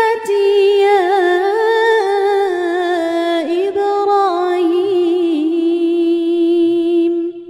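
Quran recitation chanted solo in a melodic tajwid style: one voice gliding and ornamenting its pitch through the phrase, ending on a long held note that breaks off about seven seconds in.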